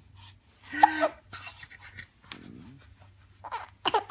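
Baby hiccuping: a short voiced hic about a second in and a sharp one near the end, with soft breathy sounds between.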